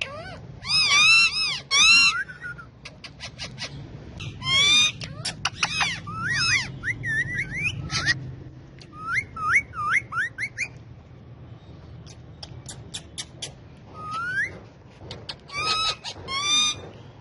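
Two male Indian ringneck parakeets calling: loud squawks in short runs of two or three, mixed with quick rising whistles and chatter, and a few clusters of sharp clicks.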